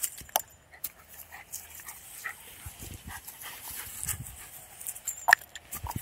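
Small Jack Russell–Chihuahua mix dog making short, faint excited noises while playing fetch with a ball. A few sharp taps are heard, the loudest near the start.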